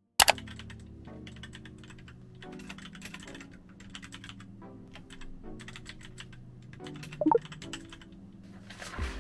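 Typing on a computer keyboard: irregular runs of key clicks over soft background music with slowly changing chords. It starts abruptly with a sharp click, and there is a brief louder pitched sound about seven seconds in.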